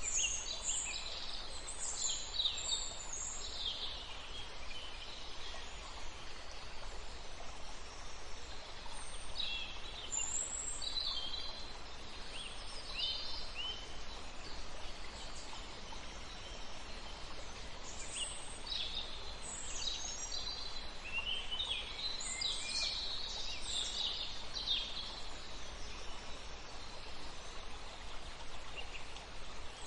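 Wild birds singing in short high chirping phrases that come and go every several seconds, over a steady outdoor background hiss.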